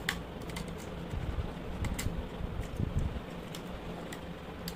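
Irregular small clicks and taps of plastic and metal as the power-cord wires are pressed and fitted into the terminal housing of a Philips clothes iron, over a steady low hum.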